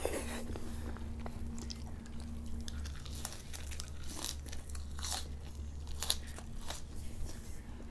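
Close-miked eating sounds: irregular crisp crunches and chewing of a mouthful of fresh herb leaves with raw salmon sashimi, the crunches coming thickest in the second half.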